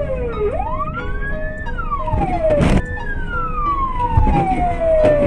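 A siren wailing, its pitch sliding down, up and down again in long glides, over steady road rumble. A sharp knock comes about two and a half seconds in.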